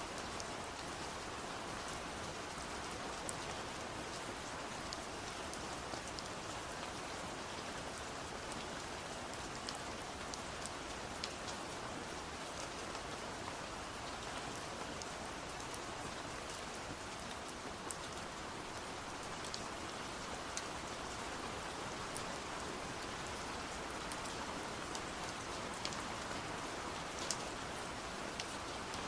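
Steady rain, an even hiss of rainfall with scattered sharper drops hitting a surface.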